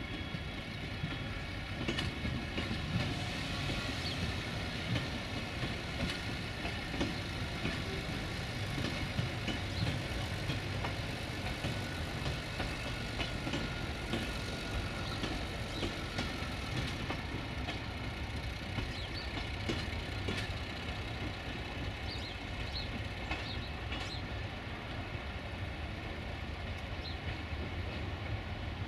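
A train running at the station: a steady mechanical hum with several steady high tones over it and occasional light clicks.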